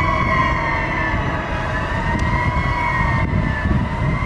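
Fire truck siren wailing, its pitch slowly rising and falling, over the low rumble of the truck.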